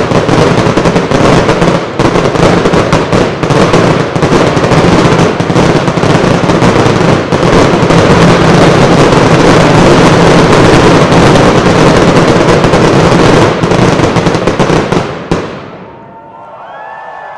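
Professional fireworks display firing a dense, continuous barrage of launches, bangs and crackle. About fifteen seconds in, the barrage dies away into a much quieter lull.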